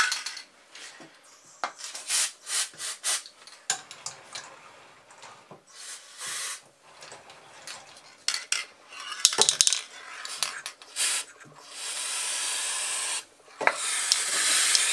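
Aerosol can of liquid spray grease hissing in short bursts onto a lathe's carriage rack gear. The longest burst lasts about a second and a half near the end. Light clinks and knocks from handling the can against the metal come in between.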